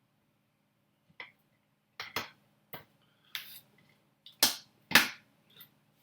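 A series of sharp plastic clicks and knocks as DDR2 memory modules are pressed down into their slots and the slot latches snap shut, the two loudest clicks coming close together in the second half.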